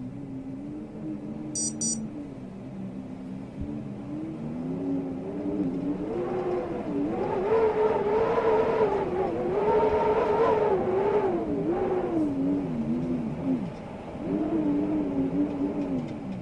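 Howling storm wind, a wavering whistle that slides up and down in pitch. It swells loudest and highest in the middle, dies down, then rises again near the end.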